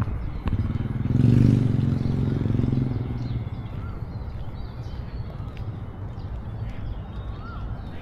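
A motor vehicle passes close by: its engine swells about a second in and fades out over the next two seconds, over a steady low rumble of traffic. A couple of faint short chirps are heard later.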